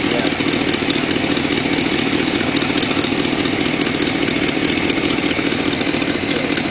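Small-block Chevrolet V8 idling steadily in an RX-7's open engine bay, with no revs.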